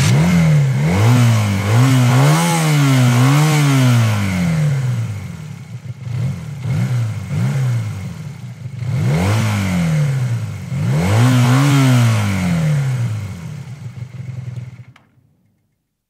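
Honda 250 motorcycle engine being revved by hand, its pitch climbing and falling with each twist of the throttle: three strong revs, then a spell of short blips, then two more strong revs. It settles and dies away near the end.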